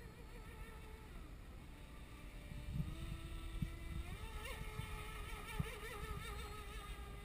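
Brushless electric motor of a 33-inch fiberglass RC racing catamaran whining as the boat runs on the water, the whine wavering in pitch and growing louder about four seconds in. A few low thumps sound over it.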